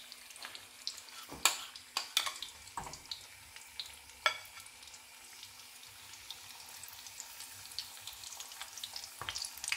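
Battered salt cod frying in a shallow pan of oil, a steady sizzle, with a metal spoon clinking a few times against a ceramic bowl as batter is stirred and spooned out.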